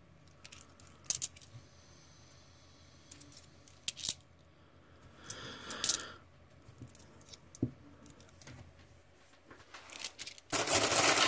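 Australian 20-cent coins clicking against each other as they are handled and set down one at a time, with a louder clatter of coins about ten and a half seconds in.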